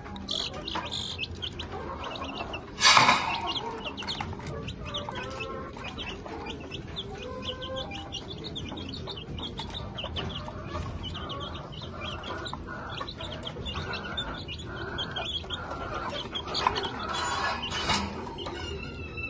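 Chickens clucking while chicks peep in many short, high cheeps, with a loud sudden noise about three seconds in.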